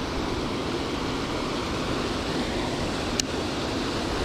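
Steady rush of water pouring over a low stone weir, with one short sharp click about three seconds in.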